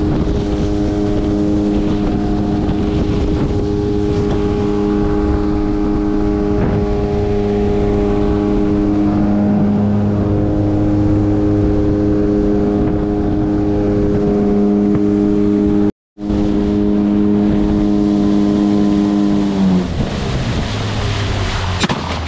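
Outboard motor of a small aluminium boat running steadily at cruising speed, with rushing water and wind. The sound drops out for an instant about two-thirds of the way through, and near the end the engine's pitch falls as it throttles back.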